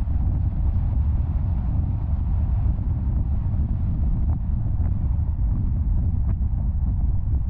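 Steady low rumble of a car driving along a paved highway: road and wind noise.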